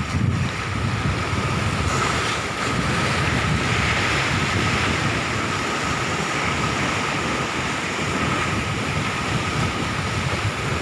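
Sea waves washing onto the shore, with wind gusting on the microphone as a low rumble.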